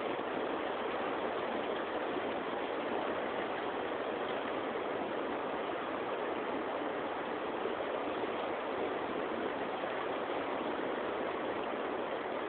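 Steady rush of a fast-flowing river, an even noise that does not change.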